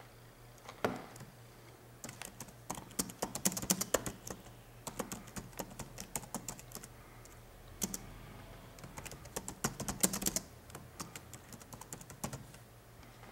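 Typing on a computer keyboard: bursts of quick keystrokes with short pauses between words, after one louder click about a second in.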